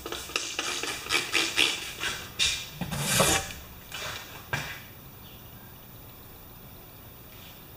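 A brush scrubbing soapy water onto a rubber tire in quick, rough strokes, to show up an air leak. A louder scrape about three seconds in and a couple of handling knocks follow.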